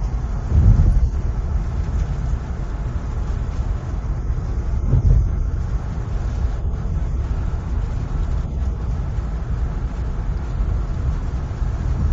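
A car being driven on the road: a steady low rumble of tyres and engine. It grows louder briefly under a second in and again around five seconds.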